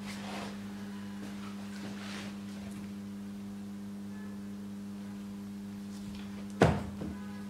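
A steady hum runs throughout, with light rustling of gloved hands on timber. About six and a half seconds in, a sharp knock of wooden window-frame parts being pushed together, followed by a softer knock.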